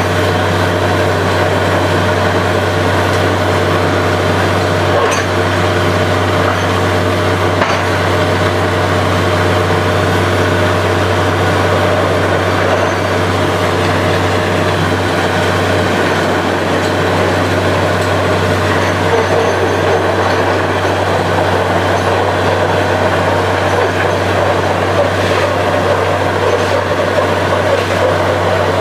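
Borewell drilling rig running steadily: a loud, constant low machine drone that holds even throughout, with a few faint ticks.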